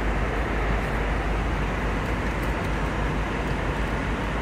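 Steady cabin noise of a jet airliner in flight: an even, unbroken rush of engine and airflow noise, strongest in the low range.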